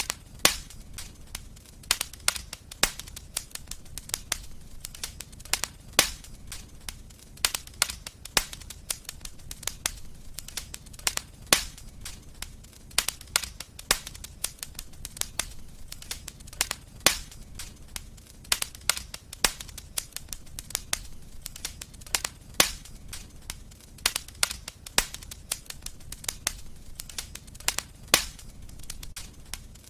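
Wood fire crackling: frequent irregular sharp pops and snaps over a low steady rumble of the flames.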